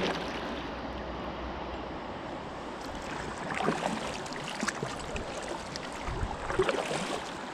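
Kayak paddle strokes splashing irregularly in the river over a steady rush of moving water.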